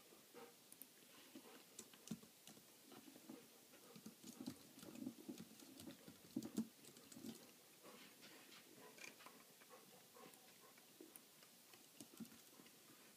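Cat lapping water from a glass fish bowl: a faint, irregular run of soft wet laps, busiest a few seconds in.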